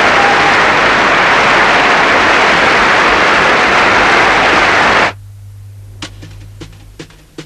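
Loud, steady hiss of static that cuts off suddenly about five seconds in, leaving a low hum. Light regular ticks, about three a second, start a second later.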